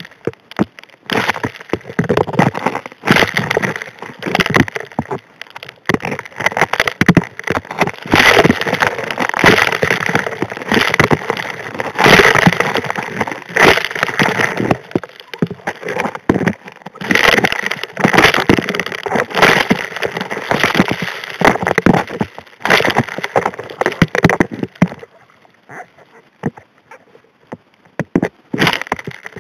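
Gravel and rocks up to about 1½ inches clashing and rattling against the steel nozzle of a Model 625 HD P hand suction dredge as they are sucked in, heard underwater as a dense run of irregular clacks and knocks. The rattle drops away for a few seconds near the end, then picks up again.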